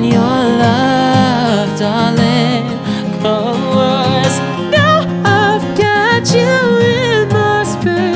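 Band music with guitar accompaniment and a wordless melody line that wavers in vibrato over sustained chords.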